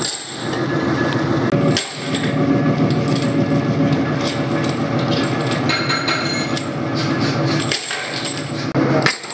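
Turned metal sprocket blanks clinking as they drop into a steel pan of blanks, over the steady hum of workshop machinery.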